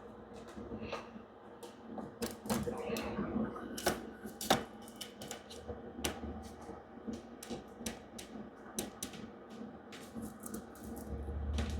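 Irregular small plastic clicks and taps as a DDR5 RAM stick and the motherboard slot's latches are handled during installation.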